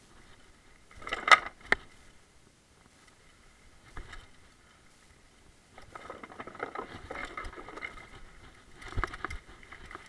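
Mountain bike rattling and knocking over a rough downhill trail. Sharp knocks come about a second in, a longer stretch of clattering starts about six seconds in, and another burst of knocks comes near the end.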